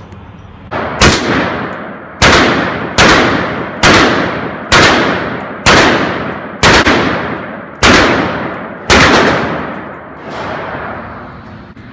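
A firearm fired about ten times in steady succession, roughly one shot a second, each shot followed by a ringing decay; the last shot is a little softer.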